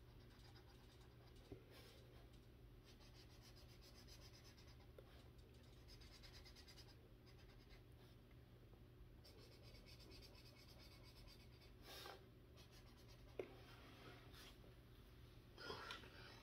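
Faint scratching of a Super Tips felt-tip marker's tip stroking back and forth on a colouring-book page, with a few soft knocks.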